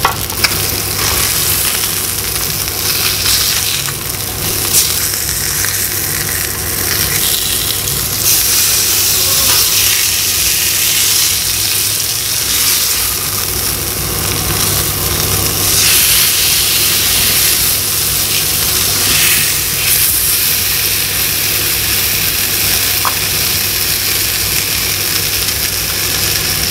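Salmon fillets sizzling in oil in a non-stick frying pan: a steady frying hiss, with a few light knocks of a spatula against the pan as the fillets are turned. A steady low hum runs underneath.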